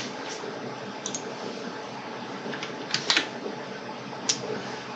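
A steady low hiss of room noise with four scattered clicks from a computer keyboard and mouse: one about a second in, two close together about three seconds in, and one near the end.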